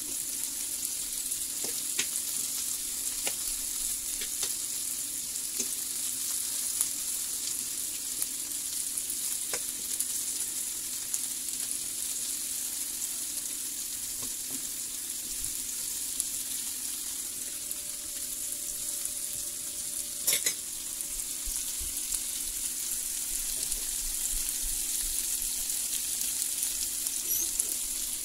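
Lamb chops and cubed potatoes sizzling steadily as they fry in a pan, with occasional light clicks of a fork against the pan and a sharper knock about two-thirds of the way through.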